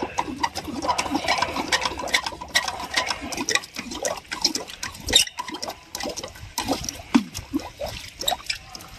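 Water poured from a plastic bottle into a centrifugal water pump to prime it, gurgling and splashing with many irregular small clicks. A single sharp knock about five seconds in.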